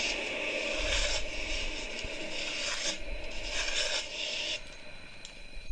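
Small hand shovels scraping and digging through shallow, crusty snow, in several rasping strokes about a second apart.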